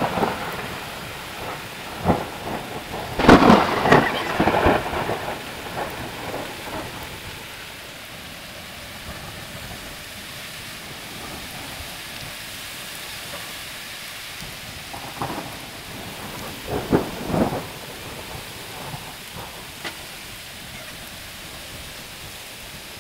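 Hailstorm: a steady hiss of hail and rain falling, with louder bursts of sharp hits about three seconds in and again around fifteen and seventeen seconds.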